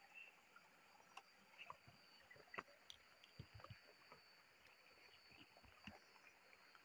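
Near silence: faint scattered rustles and crackles of footsteps and a bamboo pole moving through dry straw and weeds.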